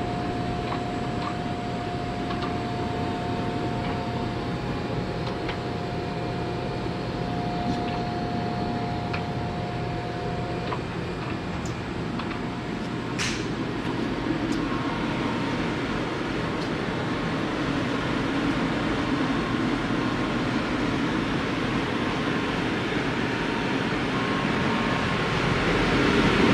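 Steady machine hum and whir of a running wave solder machine. A thin steady whine stops about ten seconds in, and a short sharp sound follows a few seconds later.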